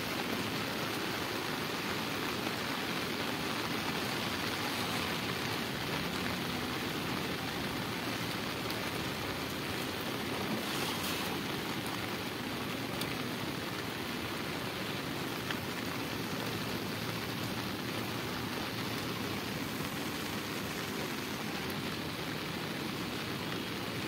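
Steady rain falling on a river's surface, an even, unbroken hiss.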